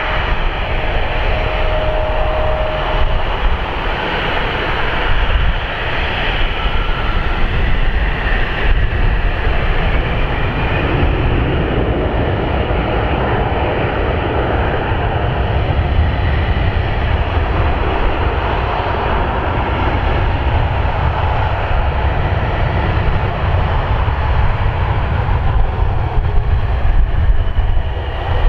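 Jet engines of taxiing airliners, a CRJ-900 regional jet and a Southwest Boeing 737, running at taxi power: a steady rumble and hiss, with a thin whine in the first few seconds.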